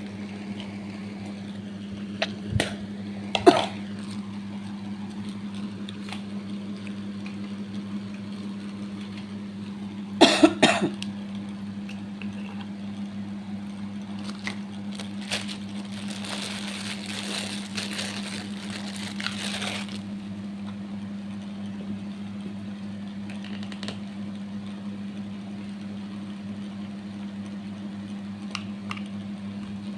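A person coughing now and then, the loudest cough about ten seconds in, over a steady low hum.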